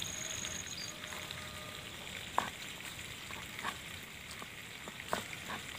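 A few short, soft taps and crunches as young ambarella (kedondong) fruit is broken and cut into a clay bowl, over a steady hiss.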